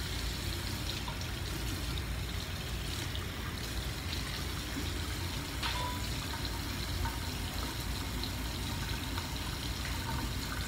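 Tap water running steadily into a sink, with a few faint clicks.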